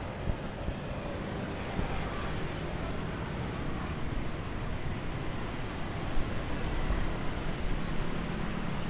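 Steady street traffic noise from passing vehicles, an even wash of sound with no single standout event.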